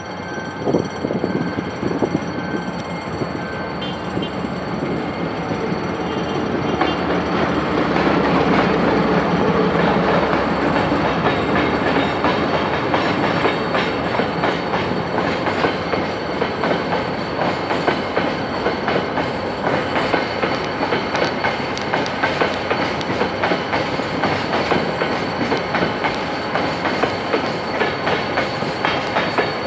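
CRRC CCDA5A1 diesel-electric locomotive passing at the head of an empty coal train, loudest about eight to eleven seconds in. Then the steady clickety-clack of the empty hopper wagons rolling over the rail joints.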